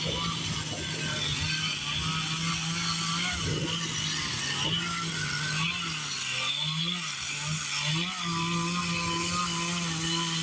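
Chainsaw engine running at high revs during wood carving. Its pitch holds steady, then dips and recovers several times in the second half as the chain bites into the wood.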